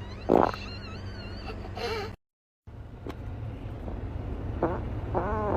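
Farting: a short loud fart about half a second in, then, over a steady low rumble, a long squeaky, wavering fart that starts near the end.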